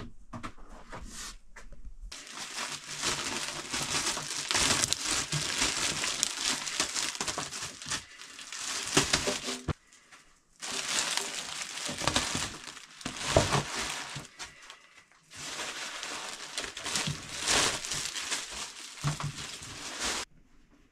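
Clear plastic wrapping crinkling and rustling as it is handled and pulled off a resin 3D printer. It comes in three long stretches with short breaks, about ten and fifteen seconds in.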